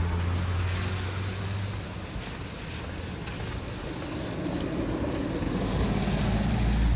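Road traffic on a rain-wet city street: one vehicle's low engine hum fades away in the first two seconds, and another vehicle approaches and swells near the end, over a steady hiss of wet road noise.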